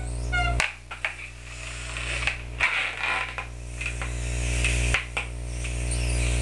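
A person inflating a rubber balloon by mouth with several long blows that swell in loudness, drawing quick breaths in between, while the stretching rubber creaks and squeaks.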